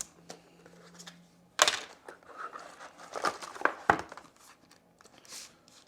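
Smartphone retail box and its contents being handled: rustling paper and packaging, with a few sharp clicks and knocks, the loudest about one and a half seconds in.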